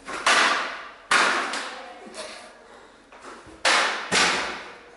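Six sharp knocks, irregularly spaced, each ringing on in the echo of a hard-walled corridor.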